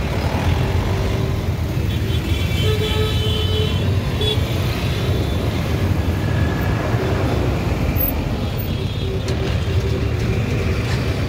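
Road traffic heard while riding a motorcycle: a steady low rumble of wind and engine, with vehicle horns tooting several times, about two to four seconds in and again near the end.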